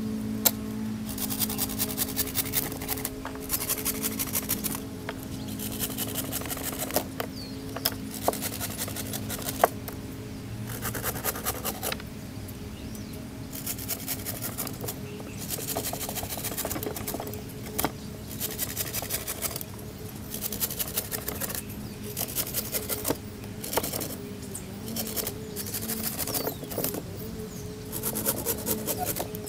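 Alder sticks being cut by hand in repeated rasping strokes, each about a second long, with short pauses between them, over steady background music.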